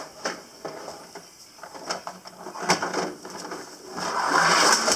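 Plastic toy fire truck knocked and clacked against a plastic slide a few times, then rolling down the slide with a sustained rattling rumble of its wheels from about four seconds in.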